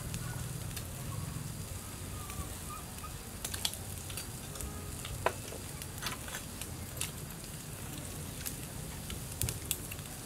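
Spoons clinking now and then against small ceramic bowls during a meal, about a dozen sharp scattered clicks, some with a short ring. Underneath runs a steady low hum and hiss.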